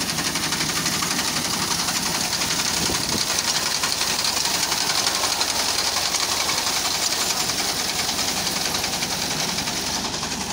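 Fiat tractor engine running under load while a six-foot tractor-driven wheat reaper's cutter bar clatters steadily and fast as it cuts standing wheat.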